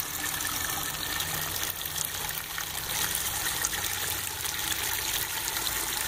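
Steady gush of water pouring from a solar pool heater's feed line into the pool, pushed by a small pool pump. This is the pump's cycle flushing warm water out of the solar panels.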